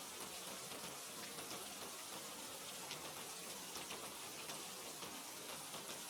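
Steady rain: an even hiss with scattered single drops ticking through it.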